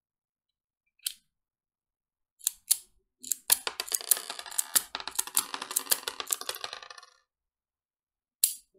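Small metal parts of a 1:2 scale alloy Beretta M92A1 toy pistol being handled. There are single sharp clicks, then about four seconds of dense, rapid metallic clicking and jingling, and one more click near the end as the slide is held back.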